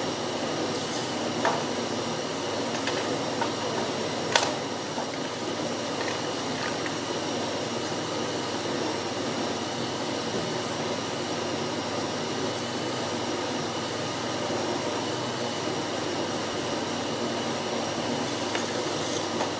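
Steady hum and rush of a fan or air-conditioning unit running in a kitchen, with two sharp clicks of utensils being handled in the first few seconds.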